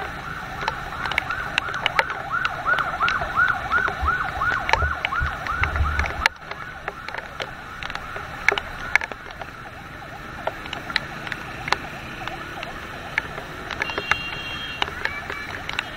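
Emergency vehicle siren in a fast yelp, rising and falling about three times a second over a steady hiss of rain and traffic, cutting off suddenly about six seconds in. Sharp ticks and taps continue throughout.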